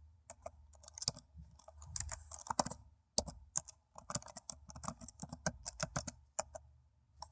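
Typing on a laptop keyboard: quick, irregular key clicks, several a second, with a short pause about three seconds in.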